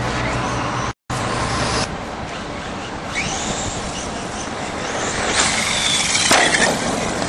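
Radio-controlled 1:8 off-road truck running on a dirt track, its motor whine rising and falling over the noise of tyres on dirt. The sound cuts out briefly about a second in, and just after six seconds there is a sharp crash and clatter as the truck tumbles.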